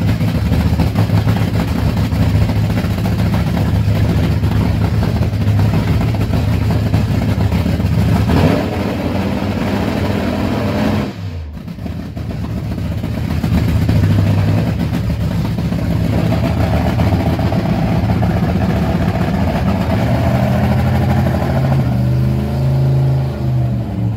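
A drag-racing engine running loud and steady during a pit warm-up. The sound drops sharply about halfway through and builds back up, and the revs rise and fall near the end.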